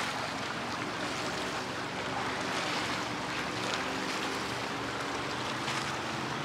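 Steady rush of lake waves and wind along the shore, with a faint low steady hum underneath.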